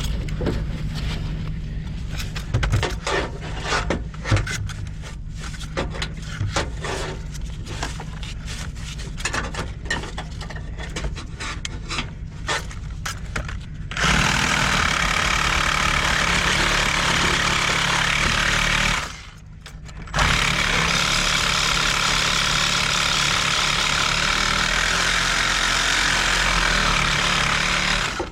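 Electric drain-snake machine working a drain line clogged with rust: first a low motor hum with the cable clicking and scraping in the pipe, then about halfway through a louder steady whirring that stops for about a second and starts again.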